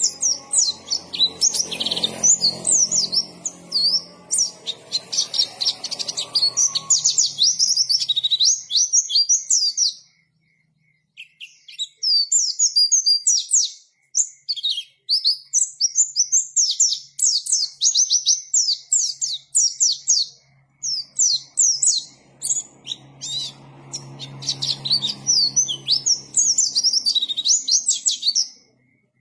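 White-eye (pleci) singing in long runs of rapid, high twittering notes, with short breaks between phrases. A low hum sits under the song in places.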